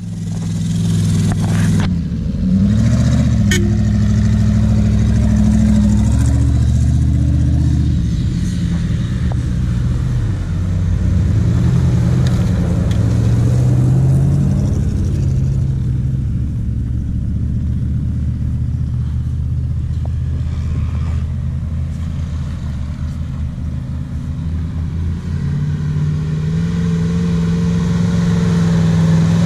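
Off-road 4x4 SUV engines running as the vehicles drive up a dirt track and pass close by, the engine pitch rising and falling with the throttle. Near the end another engine comes closer, its pitch rising.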